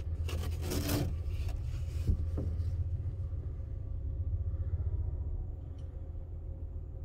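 Steady low rumble of a passenger train in motion, heard from inside the car. Short scraping and rubbing noises come in the first second, and a sharp tick about two seconds in.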